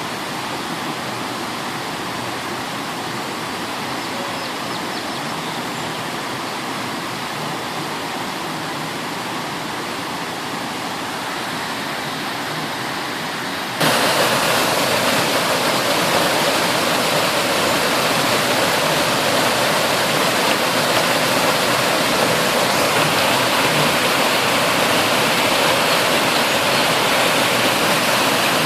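Water fountain splashing in a steady rush; about halfway through it suddenly becomes louder and brighter.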